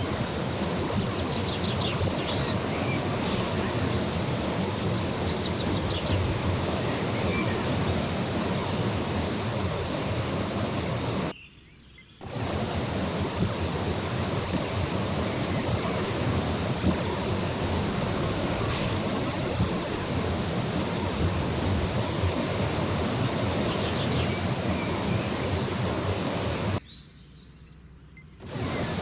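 Steady rushing outdoor noise with a few faint bird chirps in the first several seconds. The noise drops away briefly about 11 seconds in and again near the end.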